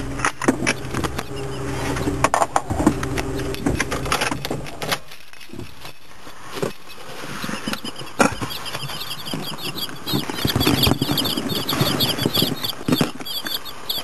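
A car engine runs steadily, with clicks and knocks of handling, then stops about five seconds in. From about eight seconds on, day-old chicks cheep in their shipping box: many short, high peeps in quick succession.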